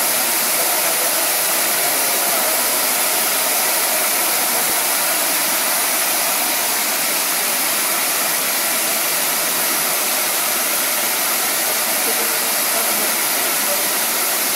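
High-speed milling spindle on a KUKA robot arm running steadily as it cuts a blue block: a continuous, even whir and hiss, strongest in the high end, with no change in pitch or level.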